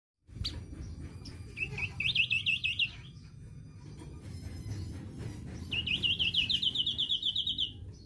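A caged songbird sings two fast trills of rapidly repeated high notes. The first comes about a second and a half in, and the second, longer one near six seconds. A low background rumble runs underneath.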